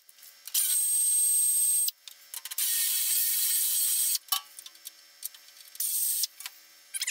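Pneumatic wrench run in three bursts, the longer two about a second and a half each and the last short, each a loud air hiss with a high whine, loosening the bolts of a truck's bottom cover plate. Short clicks and metal rattles come between the bursts.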